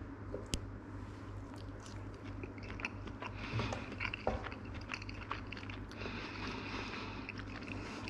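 Kitchen knife slicing through a cooked cheese sausage on a plastic cutting board, then the fibrous casing being peeled off a slice: scattered small clicks, crunches and scrapes over a steady low hum.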